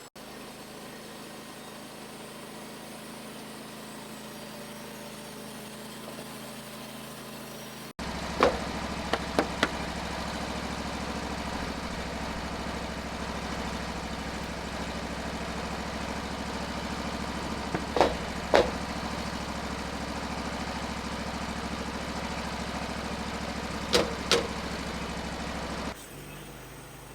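The petrol engine of a Woodland Mills HM136MAX portable band sawmill running steadily. It is heard quietly at first, then much louder from about eight seconds in, with a handful of sharp knocks scattered through the loud part.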